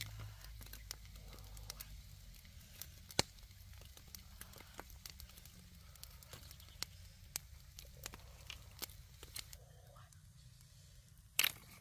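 Wood cooking fire crackling, with scattered irregular pops and one louder knock near the end.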